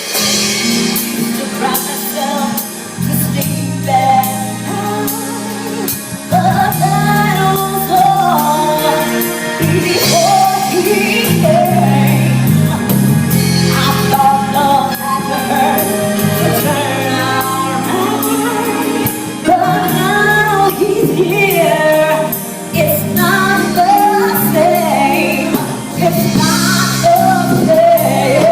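Live band playing gospel-style music with a singer carrying the melody over held chords, as a sound-check run-through. The music gets fuller and louder about six seconds in.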